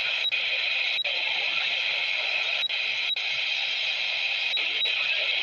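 CB radio receiver putting out steady open static hiss, broken by a handful of short clicks.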